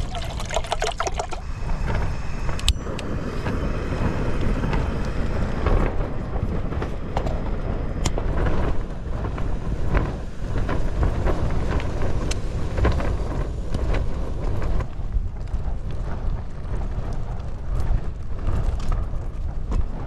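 Water poured from a plastic bottle into a metal stove pot for about the first two seconds. Then strong wind buffets the tent and the microphone with a steady low rumble, broken by a few light knocks and clicks.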